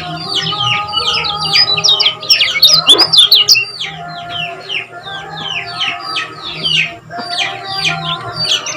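Kecial kuning, a small white-eye songbird, singing a rapid, unbroken string of short high chirps, several a second, densest a couple of seconds in. Steady lower tones run underneath.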